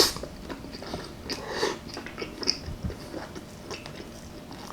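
A person chewing a mouthful of chicken parmesan, with small scattered mouth clicks.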